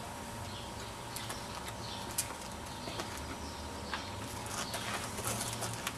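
Birds calling over a steady outdoor background, with scattered light clicks that come more often in the last two seconds.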